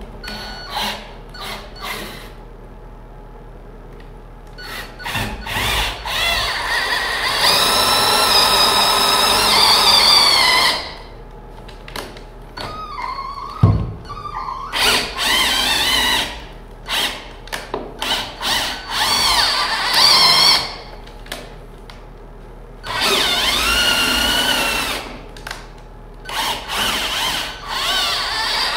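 Cordless right-angle drill boring holes through wooden wall studs. The motor whine rises and falls in pitch as the trigger is squeezed and eased, first in one run of several seconds and then in many short bursts, with one sharp knock about halfway through.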